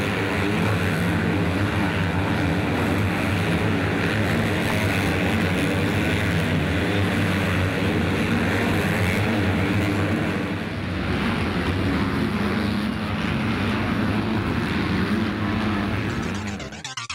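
A pack of MX2 motocross bikes racing, their engines running loud together with the pitch shifting as riders accelerate through the corners. The engine sound drops away just before the end.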